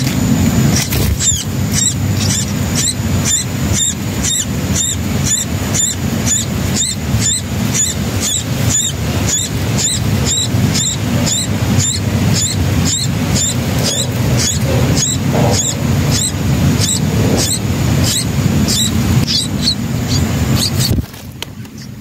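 Bulbul nestlings begging with short, high cheeps repeated about two to three times a second, over a steady low rumble. Both drop away suddenly near the end.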